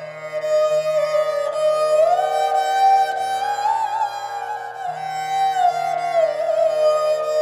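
Esraj playing a slow melody, its bowed notes sliding smoothly up and down between pitches and wavering on held notes, over a steady low drone.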